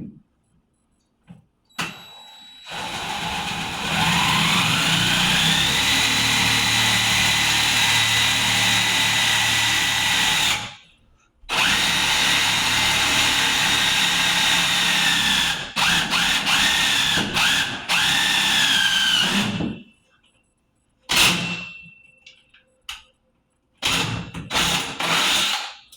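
Power drill driving a self-tapping screw into a metal shower rod. The motor whines up to full speed and runs in two long stretches of several seconds, then in a few short bursts near the end. The screw spins without going through the metal and gets very hot.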